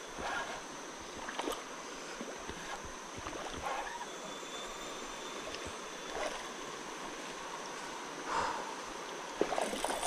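River water running in a steady rush, with a few brief splashes scattered through it.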